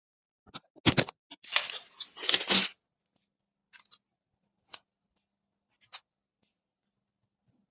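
PC parts being handled during assembly: a couple of sharp clicks, then about a second of rustling and scraping, then a few scattered light clicks.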